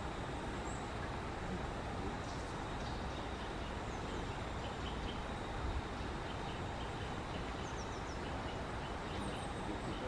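Steady outdoor background noise with faint, short, high bird chirps scattered through, and a few quick falling high notes about four, eight and nine seconds in.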